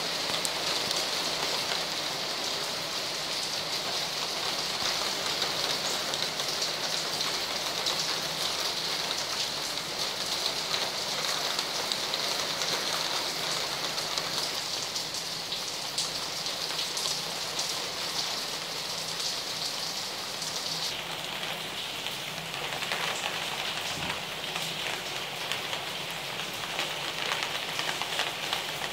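Heavy rain falling steadily, an even hiss of rain on the street and the surfaces around it.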